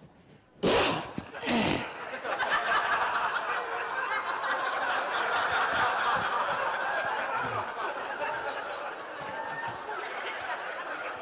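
Audience laughing in a large hall: a couple of loud bursts about a second in, then sustained crowd laughter that slowly dies down.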